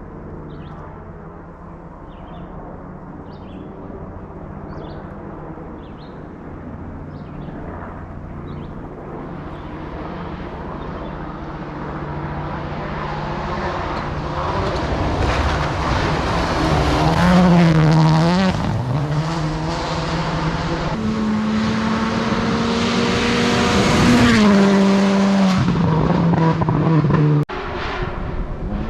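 Rally car engine approaching at speed and growing steadily louder, the revs rising and dipping repeatedly as it shifts gears, then held high as it passes close. The sound cuts off abruptly near the end.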